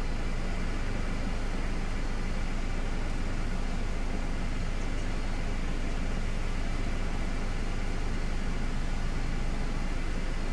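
Steady low drone of an idling engine with a constant hiss over it, unchanging throughout.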